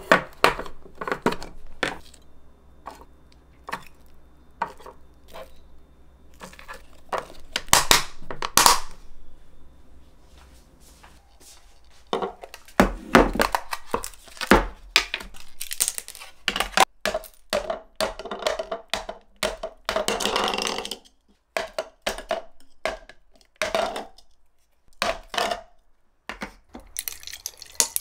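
Dish-handling clatter: plastic food containers and a drinking glass knocked and set down on a countertop, and ice balls clinking into the glass. Near the end, water starts pouring from a plastic bottle over the ice.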